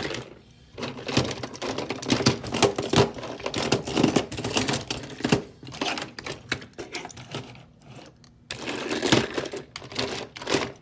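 Battery-powered toy train running on plastic track: a dense, irregular rattle of clicks over a faint motor hum, easing off midway and picking up again before it stops abruptly.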